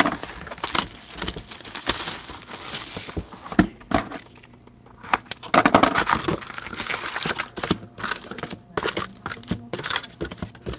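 Irregular crinkling, rustling and light clicks of plastic wrap, cardboard and foil wrappers as a sealed box of hockey cards is unwrapped and opened and its foil packs are pulled out. There is a brief lull about four seconds in.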